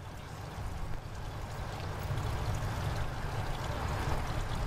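Water pouring and gurgling over a low steady rumble, growing louder about two seconds in.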